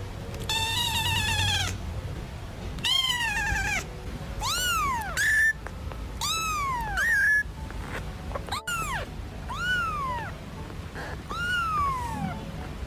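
A kitten meowing over and over, about eight or nine high-pitched meows a second or so apart, most rising then falling in pitch.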